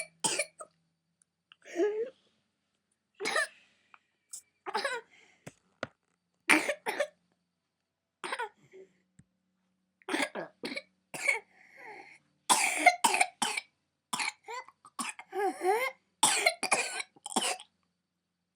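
A toddler's paroxysmal coughing fit from whooping cough (pertussis, confirmed by swab). Scattered single coughs give way to a rapid, unbroken run of coughs from about ten seconds in until near the end.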